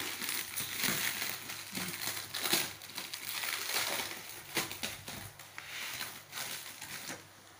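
Clear plastic wrapping on a cardboard box crinkling and crackling as it is handled and pulled at. The crinkling is dense for about five seconds, then thins out.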